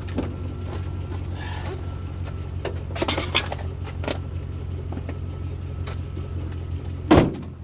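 Truck engine idling steadily, with some brief clattering about three seconds in and a loud thump near the end.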